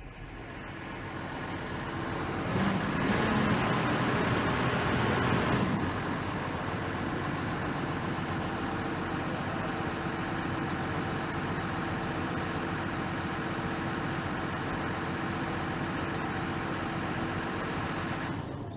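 John Deere 6150R tractor's six-cylinder diesel engine running. It builds up over the first few seconds and is at its loudest from about three to six seconds in, with a high whine rising and falling, then settles back to a steady idle.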